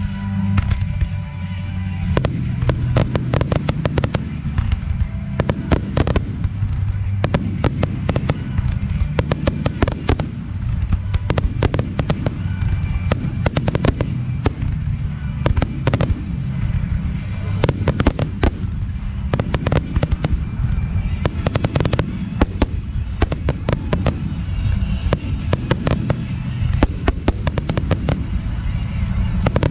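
Fireworks finale barrage: aerial shells bursting in rapid succession, with many sharp bangs and crackles over a continuous low rumble.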